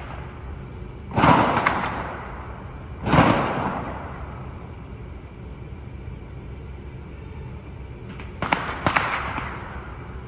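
Four loud bangs from the armed attack on the aerospace company's headquarters, one about a second in, one about three seconds in and a close pair near the end. Each trails off over a second or more, and there are fainter cracks between them.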